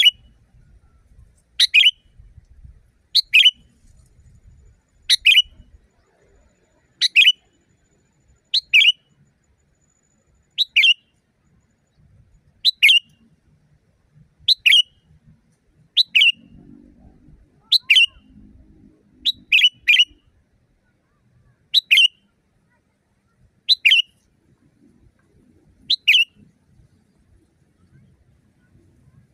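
Sooty-headed bulbul (kutilang) giving the same short, loud call over and over, about once every two seconds, each a quick downward-sweeping note; twice in quick succession a little past the middle.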